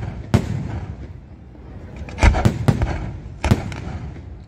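Fireworks shells bursting in the air: a bang just after the start, three quick bangs about two seconds in and two more around three and a half seconds, with a low rumble carrying on between them.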